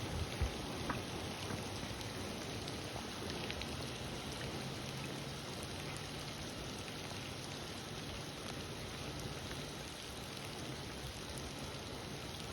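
Steady rain falling, an even hiss with now and then the tick of a single drop.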